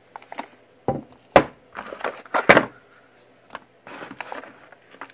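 Unboxing handling noise: a run of sharp knocks and rustles as a network switch in its plastic bag and its moulded pulp packaging are moved about on a wooden desk. The two loudest knocks come about a second apart, with lighter rustling near the end.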